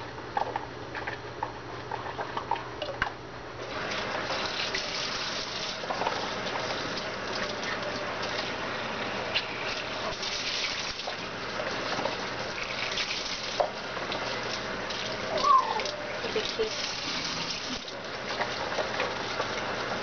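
Kitchen faucet running water into a plastic container in a stainless steel sink, starting about four seconds in after a few light clicks of handling, then a steady splashing hiss. About two-thirds of the way through, a brief high whistle-like note slides up and down.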